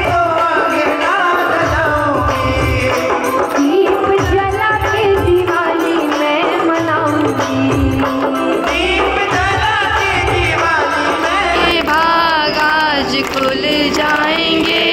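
Indian devotional song (bhajan): a voice singing a wavering melody over a steady drum beat.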